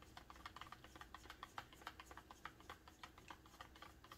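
Faint, quick, irregular clicking of a stir stick tapping against the inside of a plastic cup while acrylic paint and pouring medium are stirred.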